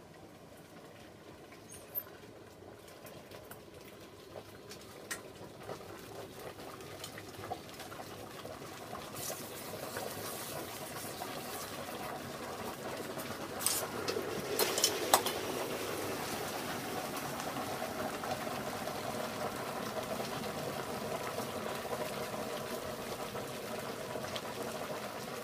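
Molten glass quenched in a bucket of water: the water hisses and boils around the red-hot glass, growing louder, with scattered sharp cracks as the glass shatters. Several loud cracks come close together about fourteen to fifteen seconds in. The glass is being quenched into fine fragments so it can be stirred and remelted into more even glass.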